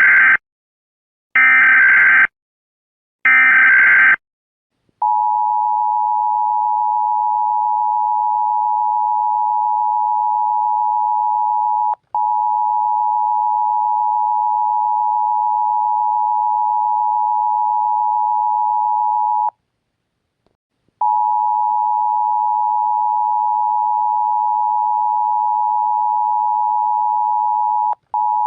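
Emergency Alert System tones: the last of three short, harsh data bursts of the SAME header, then a long, steady, mid-pitched attention tone. The tone drops out briefly about twelve seconds in, stops for about a second and a half near twenty seconds, and drops out briefly again near the end.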